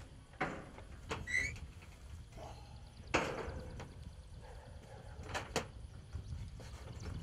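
Sheet-metal roof panel knocking and rattling against a steel tube frame as it is lifted and shifted into place: a few sharp clanks, the loudest about three seconds in, then a quick pair past the middle.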